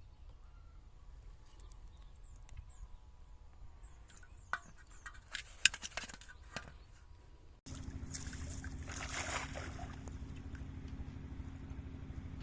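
Scattered splashes and sharp clicks from water and handling. Then, after a sudden cut, a steady low motor hum with a brief splash over it.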